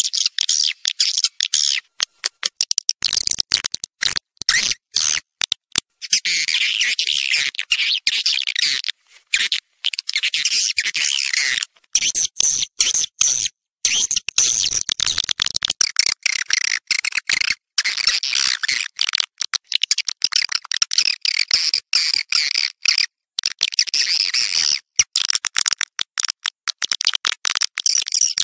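Swiftlet calls played as a lure track: dense, rapid twittering chirps and clicks in runs broken by brief gaps. It is meant to draw swiftlets into a swiftlet house and get them to roost there.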